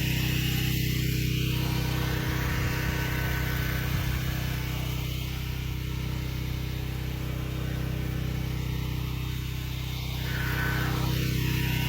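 Pressure washer running steadily, a low engine or motor hum under the hiss of the spray, easing slightly in level in the middle.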